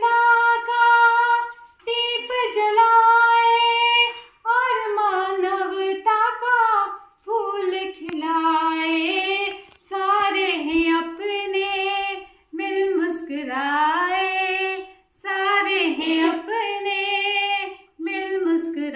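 A woman singing a Hindi song unaccompanied, in phrases of two to three seconds with short breaths between and some long held notes.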